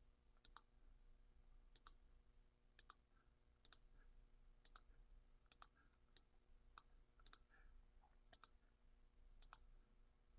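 Faint computer mouse clicks, about a dozen at irregular intervals of roughly a second, over a low steady hum.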